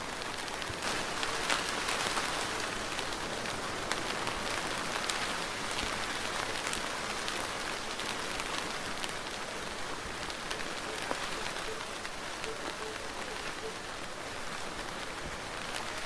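Steady rain falling, an even hiss dotted with the sharp ticks of individual drops striking a surface.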